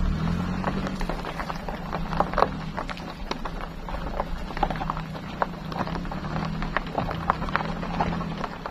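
Campervan rolling slowly over a rough gravel track, its tyres crunching and popping loose stones and dry leaves in quick irregular clicks, over the engine's steady low hum.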